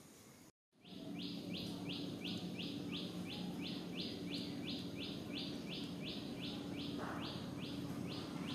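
A high chirping call repeated in an even rhythm, about two and a half notes a second, starting about a second in over a steady low hum.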